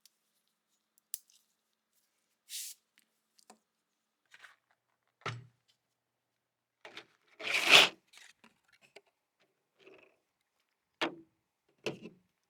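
Handling noises: scattered small clicks, taps and short scrapes, with one longer, louder scrape a little after the middle.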